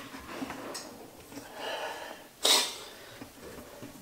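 A short, sharp burst of breath, like a huff or a sneeze, about two and a half seconds in, over faint handling rustle of a garbage disposal being held up to its sink mounting.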